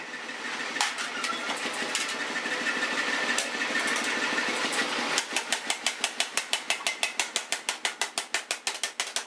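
Power hammer running, then from about five seconds in its ram strikes the steel hoe blank in a rapid, even series of blows, about six a second.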